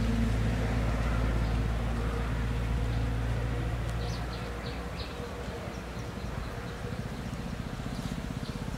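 A motor engine drones steadily, then fades about four seconds in, leaving a lower, rapidly pulsing engine sound. A few short high chirps come about halfway through.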